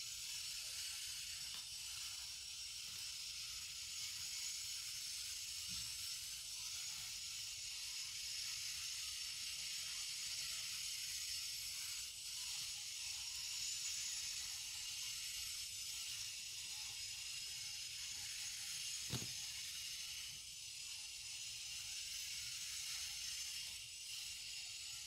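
Steady background hiss, with one short click, like a small plastic part being handled, about three-quarters of the way through.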